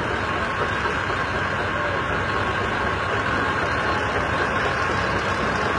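Old tractor engine running steadily at low speed as the machine drives slowly past, with a fine low-pitched firing pulse under a noisy mechanical clatter.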